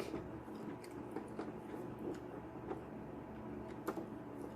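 A few faint, scattered clicks and light taps as the parts of a half-dismantled Keurig coffee maker are handled, over a low steady hum.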